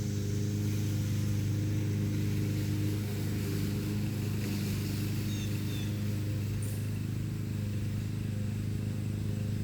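A steady low mechanical hum, level and unchanging in pitch, with a few faint high chirps about five seconds in.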